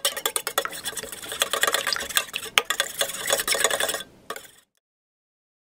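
Raw eggs being beaten in a bowl: a quick run of clicking strokes of the utensil against the bowl, which stops abruptly about four and a half seconds in.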